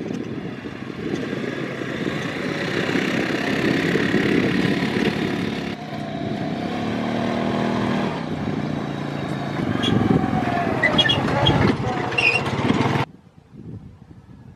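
A motor vehicle engine running steadily, cutting off abruptly about two seconds before the end.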